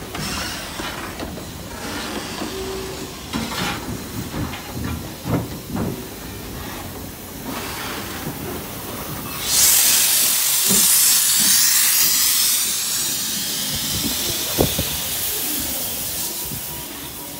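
WD Austerity 2-10-0 steam locomotive moving slowly, with irregular clanks and knocks from its wheels and motion. About nine and a half seconds in, a loud hiss of steam from the cylinder drain cocks starts suddenly, then fades. A single sharp clank comes near the end.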